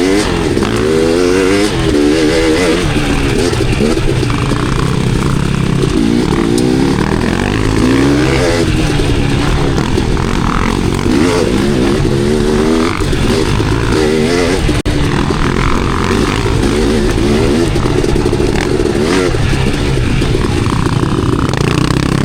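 Dirt bike engine under load on a trail, revving up and down over and over, its pitch rising and falling every second or two.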